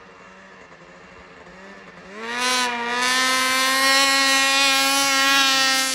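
Ski-Doo 600RS race snowmobile's two-stroke engine with a race can muffler, first ticking over quietly, then about two seconds in revving up and holding a loud, steady high-rev pitch as the sled accelerates.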